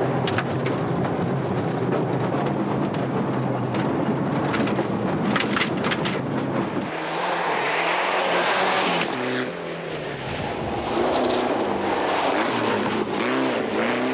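Mitsubishi Lancer Evolution VI rally car's turbocharged four-cylinder engine driven hard on gravel. It is first heard from inside the cabin with sharp clicks of stones hitting the car. About seven seconds in it is heard from outside, the engine note rising and falling through gear changes as the car slides past spraying gravel.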